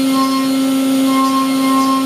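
Brother S700X1 CNC vertical machining center milling, its spindle and cutter giving a steady whining tone with overtones, one higher overtone swelling and fading as the cutter works along the part.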